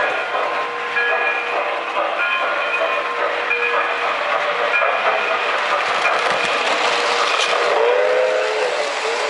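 Model train running on layout track, the wheels rolling over the rails with a continuous rumble and clatter, a train passing close by near the end. Short steady tones come and go about once a second over the rolling noise.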